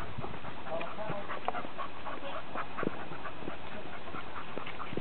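A cocker spaniel moving about on a dirt trail strewn with dry leaves: scattered crunching steps and rustles through the leaves.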